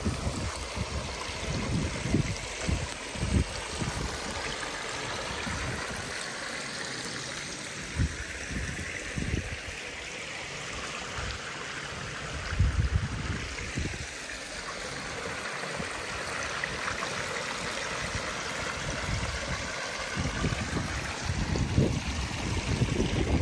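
Stream water running steadily and spilling over a small weir in a canal, with occasional low thumps on the microphone.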